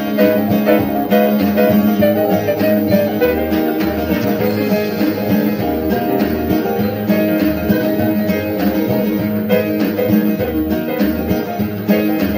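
Background music: a lively plucked-string tune, guitar-like, playing steadily.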